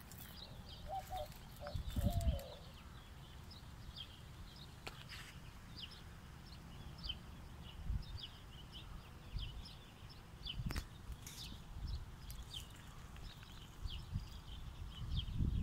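Small birds chirping in dense brush, with short high chirps coming several times a second and a few lower calls about a second in. Low rumbles on the microphone are loudest about two seconds in and again near the end.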